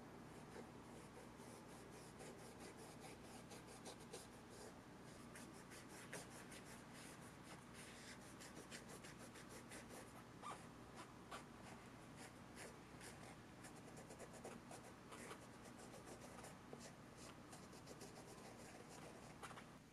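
A small hand tool scratching and rubbing over the suede toe of a sneaker: a run of faint, quick, scratchy strokes.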